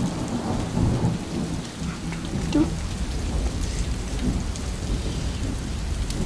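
Thunderstorm sound effect: steady rain with a low rumble of thunder.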